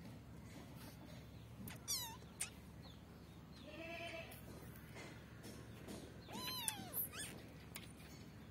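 Young kitten mewing, four short high-pitched mews that rise and fall, the longest a little past halfway.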